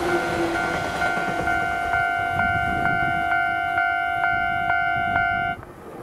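Japanese level-crossing warning bell ringing its repeating two-tone electronic clang, about two strikes a second, over the rumble of a departing electric train's wheels on the rails. The bell cuts off suddenly near the end, once the train has cleared the crossing.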